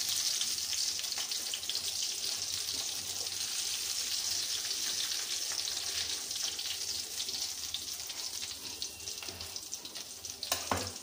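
Hot oil sizzling and crackling in a kadai as fried potato bondas are lifted out with a slotted spoon. The sizzle slowly dies down as the oil cools with the gas turned off, and a short knock sounds near the end.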